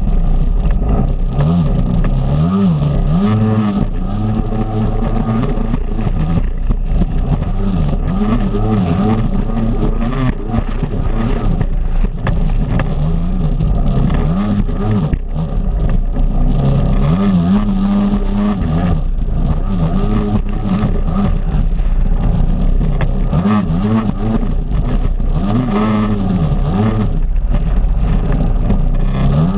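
Personal watercraft (jet ski) engine running hard and being throttled up and down, its pitch rising and falling every second or two.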